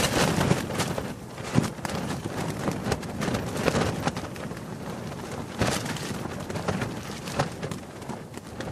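Fabric flapping and fluttering in the wind: a constant rustle broken by irregular sharp snaps every second or two.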